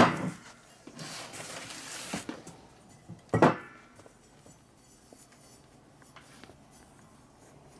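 Two loud clunks of a heavy Continental aircraft engine cylinder being set down and shifted on a steel-topped workbench: one at the very start and one about three and a half seconds in, the second with a short metallic ring. Between them comes about a second of scraping and rustling as it is handled.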